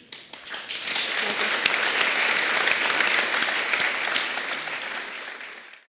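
Audience applauding, a dense patter of many hands clapping that swells up in the first second, then thins out and cuts off abruptly just before the end.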